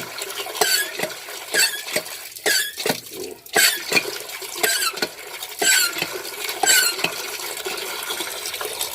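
Hand-operated water pump (poso) being worked, its handle squeaking on each stroke about once a second while water pours out steadily. The strokes stop near the end and the water keeps running. The pump is delivering a strong flow again after its worn piston seal was replaced with a piece of rubber slipper.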